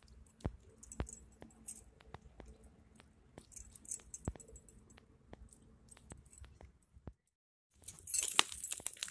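Bangles on a woman's wrists jingling and clinking in small bursts, with scattered light clicks, as her hands work over a metal basin of water. After a short break near the end, dense crackling from a wood fire.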